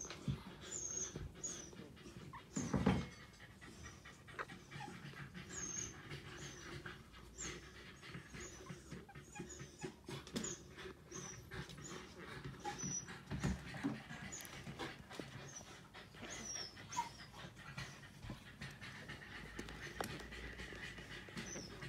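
Newborn puppies sleeping in a heap: quiet breathing with small, high, falling squeaks about every second. Two dull bumps come about three and thirteen seconds in.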